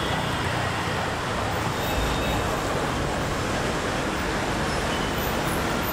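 Steady traffic noise from a busy main road, with cars, trucks and auto-rickshaws passing.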